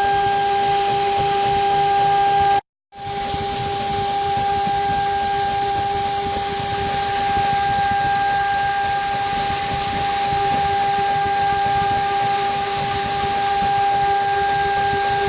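CNC router spindle running steadily with a constant whine and hiss as it carves wood. The sound cuts out completely for a moment about three seconds in, then resumes.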